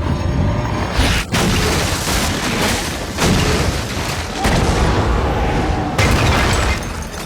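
Film soundtrack: four heavy booms about a second or so apart, over music.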